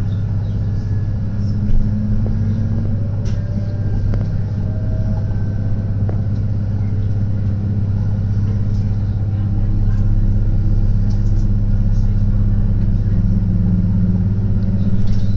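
Diesel railbus heard from inside the passenger cabin while under way: a steady low engine drone over rail rolling noise, growing slightly louder about ten seconds in.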